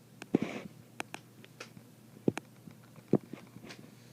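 A handful of sharp clicks and light knocks, as of a plug and wiring being handled, with a short hiss near the start. The Federal Signal horn does not sound: a hitch in the second test.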